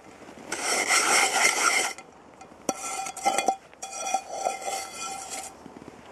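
A blackened Eagle Products frying pan being scrubbed against crusty snow to scour off soot: three rasping scrapes, the first about half a second in, with a metallic ring from the pan sounding through the second and third.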